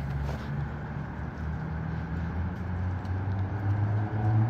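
Steady low rumble of a nearby vehicle engine mixed with gusty wind, the engine hum swelling near the end.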